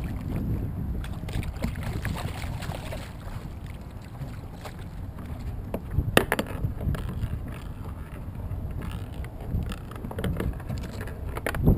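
Wind rumbling on the microphone and small waves lapping against a plastic kayak hull, with two sharp knocks, one about six seconds in and one near the end.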